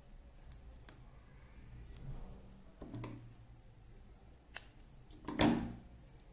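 Scissors snipping double-sided foam tape: one loud, sharp snip about five seconds in, after several light clicks and taps of the tape and paper being handled.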